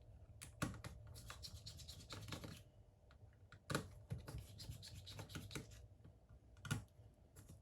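Faint scraping and scattered clicks of a small screwdriver taking out the screws around a Samsung Galaxy A10's motherboard.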